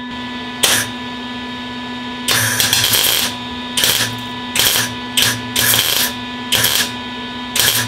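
MIG welder laying short tack welds on a sheet-metal quarter-panel patch: about eight brief bursts of the arc, each under a second, one a little under a second in and the rest in a run from about two seconds on.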